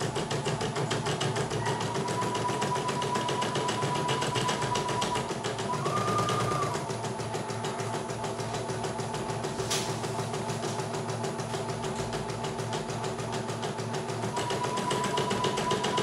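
CNY E900 portable embroidery machine stitching a design: rapid, even needle strokes over a steady whine whose pitch rises briefly about six seconds in. One sharp click near ten seconds.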